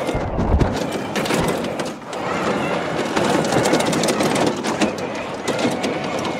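Battery-electric zero-turn riding mower spinning tight circles at high speed on gravel: tires crunching and scattering gravel over the running drive motors, easing off briefly about two seconds in.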